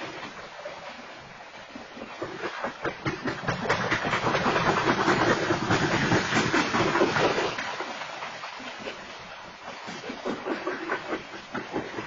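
A freight train's hopper cars rolling past, steel wheels clacking and rattling over the rails. It grows louder for a few seconds in the middle, then eases off.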